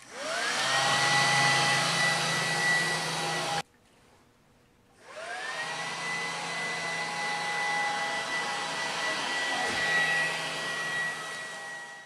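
Two small hairdryer fan motors on a homebuilt hovercraft, run from 9-volt batteries, spinning up with a rising whine and settling into a steady whir. The sound cuts off suddenly after about three and a half seconds, then starts again with the same rising spin-up about a second and a half later.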